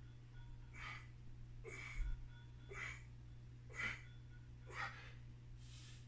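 A man's quick, forceful breaths, about one a second, in time with his reps of bar dips, sped up to double speed, over a steady low hum.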